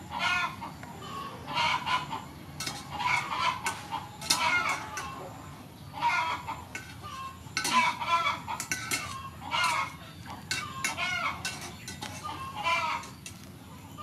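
Chickens clucking over and over, short pitched calls coming every second or so, with occasional clinks of a metal spoon and strainer against an aluminium pot of boiling water.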